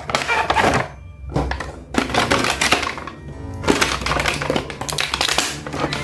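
Background music, with four bursts of rapid clicking and crackling from plastic being handled.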